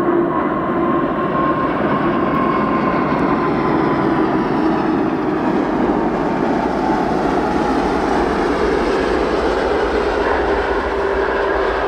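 Jet airliner's engines passing close by: a loud, steady rush with whining tones that drift slowly in pitch.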